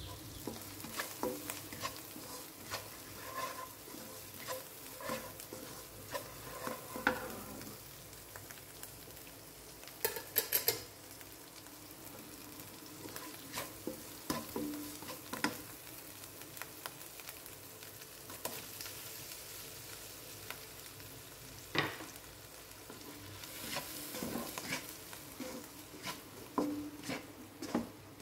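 Chili paste with shallots, garlic and tomato pieces sizzling in a nonstick wok, with a steady frying hiss under the scrape of a spatula stirring it. The spatula knocks and clicks against the pan now and then, with a quick cluster of clicks about ten seconds in and one sharp knock a little past twenty seconds.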